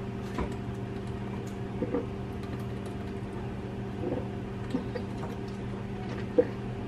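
A person drinking from a plastic water bottle: a few soft swallows and small plastic clicks and crinkles, spaced out, over a steady low electrical hum from a kitchen appliance.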